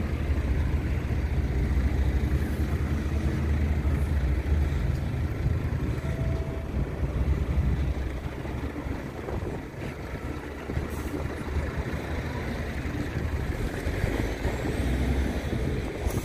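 Road vehicles running in a car park: a steady low engine rumble, heaviest for the first half and easing after about eight seconds.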